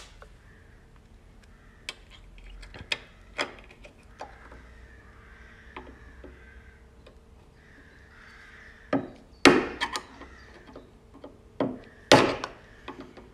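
Hammer tapping on a screwdriver to knock small retaining clips down onto threaded studs under a van's sill. A few light clicks come first, then sharper knocks in quick groups over the last few seconds.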